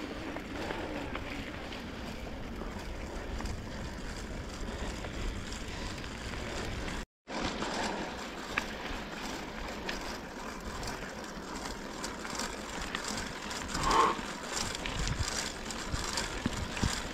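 Bicycle riding noise: tyres rolling on the road and wind on the microphone, steady throughout, with a brief cut to silence about seven seconds in.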